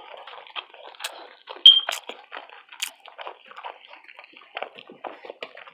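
Close-miked chewing, with a dense run of short wet smacking and squishing clicks from the mouth and one louder click about a second and a half in.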